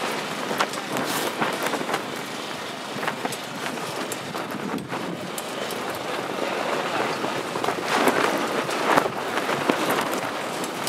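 Wind buffeting the microphone: a rough rush of noise full of crackles, swelling into a stronger gust about eight seconds in.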